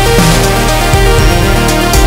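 Loud electronic background music with a steady beat and heavy bass.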